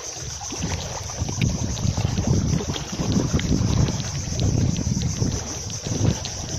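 Wind buffeting the microphone, a low rumble that rises and falls in gusts, with faint light ticks scattered through it.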